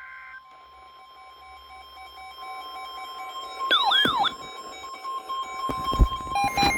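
Weather-radio alert tones: a brief burst of data tones, then a steady single-pitch warning alarm tone near 1 kHz, typical of the NOAA Weather Radio 1050 Hz alarm. A second alarm beeps in pulses alongside it. A short swooping two-note warble comes about four seconds in, and a few knocks come near the end.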